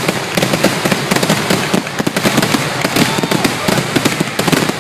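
Fireworks display going off in a dense, unbroken run of bangs and crackles, many reports a second.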